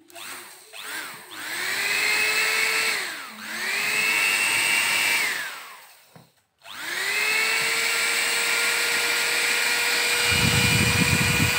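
Philips hand mixer's motor and freshly replaced, oiled plastic drive gears test-running out of the housing: after a couple of short bursts it is switched on three times, each run rising to a steady whine and winding down, the last and longest about six seconds, with some low knocking near the end. The new gears run smoothly, judged normal after the repair of the stripped gear.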